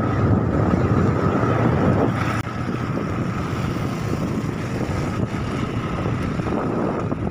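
Motorcycle engine running steadily as the bike rides slowly past close by, heard as an even rumble and hiss that drops a little about two seconds in.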